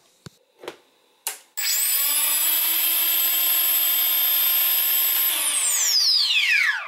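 A click, then the brushless motors of a Walkera Furious 320 quadcopter, with no propellers fitted, spin up quickly to a steady whine at idle throttle. Near the end they wind down in a falling whine to a stop.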